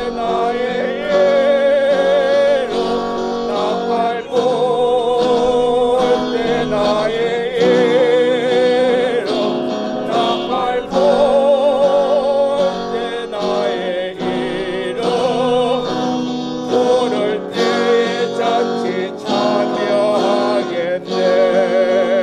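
Church praise team singing a hymn over instrumental accompaniment, with long held notes sung with vibrato.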